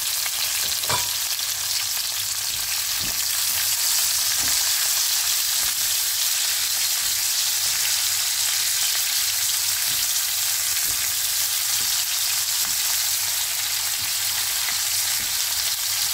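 Oil sizzling steadily in a frying pan as a piece of fish, bell peppers and onion slices fry, with occasional light knocks of a silicone spatula stirring them against the pan.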